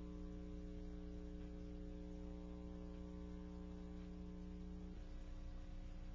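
Faint steady electrical mains hum, a stack of even tones with light hiss; the strongest low tone drops away about five seconds in.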